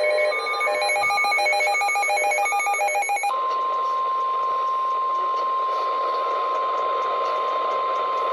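NOAA Weather Radio warning alert: for about three seconds, rapid beeps alternate between a higher and a lower note. Then the steady 1050 Hz warning alarm tone comes in and holds as one unbroken pure tone, signalling that a warning, here a river flood warning, follows.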